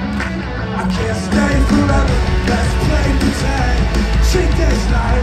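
Loud live rock band music with heavy bass and drums, getting louder about a second and a half in.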